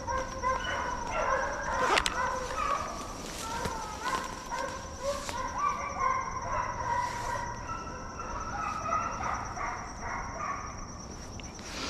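Deer hounds baying in many short, overlapping calls as they run a deer they have just jumped, a sign that they are on a hot track. A single sharp click sounds about two seconds in.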